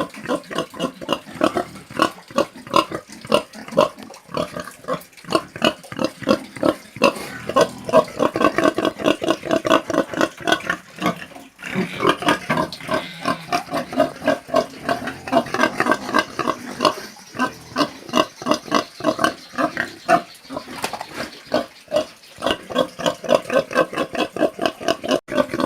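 Domestic pig grunting over and over in short, rapid grunts, several a second.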